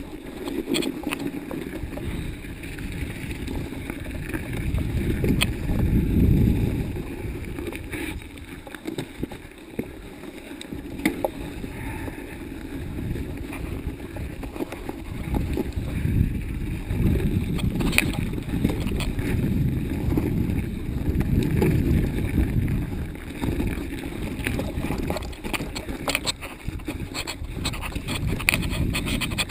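Mountain bike riding down a rough, snowy forest trail: a low rumble of tyres over snow and stones and wind on the microphone, swelling and easing, with frequent sharp rattles and clicks from the bike.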